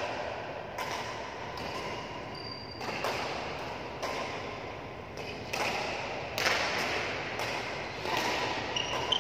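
Badminton rackets hitting a shuttlecock and players' footsteps on the court, in a reverberant sports hall: a dozen or so sharp, irregular hits, with a brief high squeak about two and a half seconds in.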